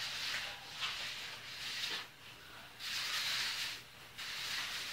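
Hand float swished lightly over wet, freshly placed concrete: about four scraping strokes, each about a second long with short pauses between, as the surface is floated smooth.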